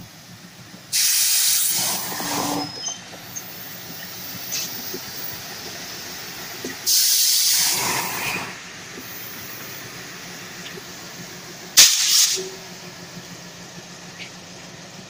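WDG3A diesel locomotive passing with its engine running, broken by three sudden bursts of loud hissing: one about a second in and one about seven seconds in, each under two seconds long, and a short, sharp one about twelve seconds in.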